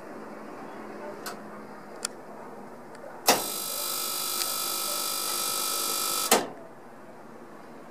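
Dainichi kerosene fan heater re-igniting: after two light clicks, its spark igniter buzzes loudly for about three seconds, starting and stopping abruptly with a click.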